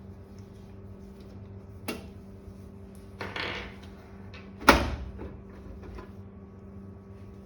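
Metal case of a Lenovo ThinkStation P330 tower being opened: a sharp click about two seconds in, a short scraping slide, then a loud clunk near five seconds in.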